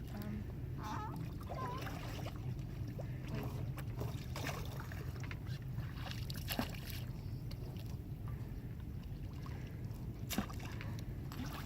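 Rowing-dinghy water ambience: a steady low rumble with light water sloshing, broken by a few sharp knocks.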